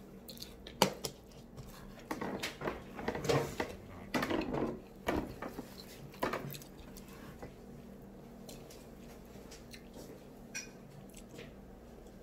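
Close-up eating and handling of a fried egg roll over a glass plate. There are sharp clicks and clinks, the loudest about a second in, and a busy stretch of crackly chewing noise from about two to five seconds in, then only a few faint ticks.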